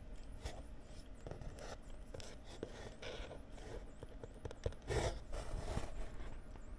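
Small taps and scrapes of tiny wooden kit parts and tweezers being handled on a plastic cutting mat, with a louder scrape about five seconds in.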